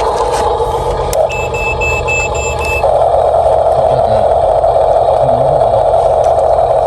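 Electric drive motors and plastic gearboxes of Huina RC construction toys whining steadily, with a toy reversing beeper sounding about five quick beeps between one and three seconds in.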